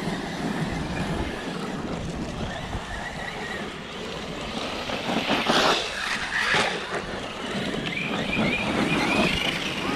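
Battery-powered RC trucks racing on a dirt track, their brushless electric motors whining, with a rising whine near the end. Wind on the microphone runs underneath.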